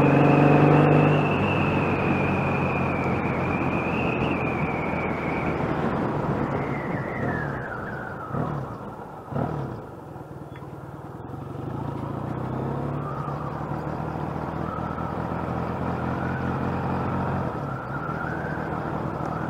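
Motorcycle engine running under way, heard from the rider's seat. The engine note falls away about eight seconds in as the bike slows to a near stop, then climbs again as it pulls away and runs on at a steady pace.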